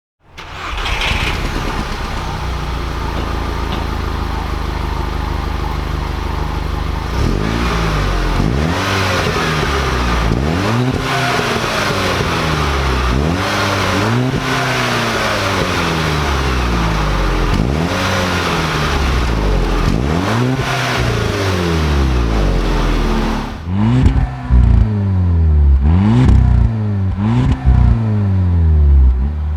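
Stock 2011 VW Golf 6 GTI's turbocharged 2.0-litre four-cylinder through its factory exhaust: a steady idle, then a run of revs, each rising and falling back over a second or two. Near the end, shorter and sharper blips, with clicks between them.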